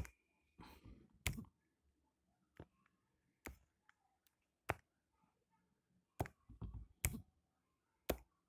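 Stylus tapping on a tablet's glass touchscreen: about a dozen short, sharp clicks at irregular intervals.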